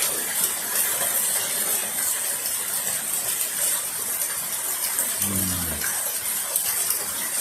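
Heavy rain falling steadily, an even hiss. A short low hum from a man's voice about five seconds in.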